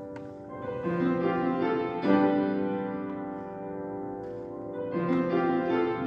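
Background music led by piano, with new chords sounding a few times.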